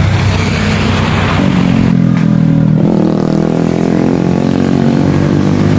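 Motorcycle engines on the road. A passing rush of engine noise is followed, from about a second and a half in, by an engine running steadily close by.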